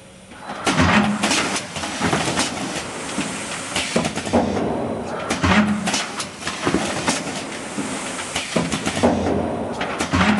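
Rotary Doy-pack pouch filling and capping machine running: a continuous clatter of clacks and knocks from its indexing turret and pneumatic actuators, with short hisses of air.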